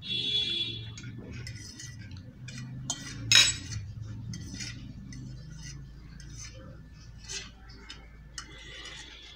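Steel forks scraping and clinking on stainless steel plates: a ringing scrape at the start, a sharp loud clink a little over three seconds in, and lighter taps and scrapes after it.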